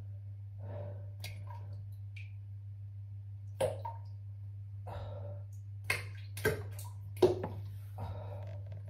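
Several short, sharp plops and drips into toilet-bowl water, about four of them in the middle of the stretch, the last the loudest, over a steady low hum.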